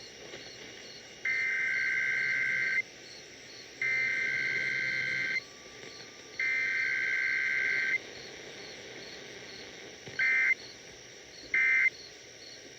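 Emergency Alert System SAME data tones on a radio broadcast during an EAS test: three harsh, warbling bursts of about a second and a half each, the header code, then three short bursts near the end, the end-of-message code.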